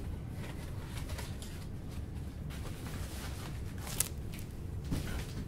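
Packing foam being pulled out of a 3D printer and put into a plastic-lined shipping box: soft rustling and light handling clicks, with one sharper click about four seconds in, over a steady low room hum.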